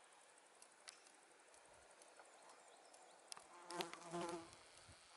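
A flying insect buzzing close by for about a second, a steady hum beginning a little past the middle, over faint background with a few light ticks.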